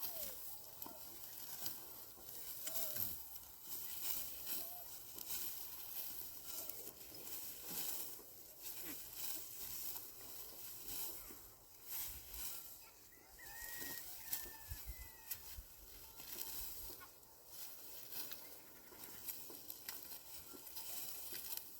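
Chickens clucking, with a few short high chirps and scattered small clicks.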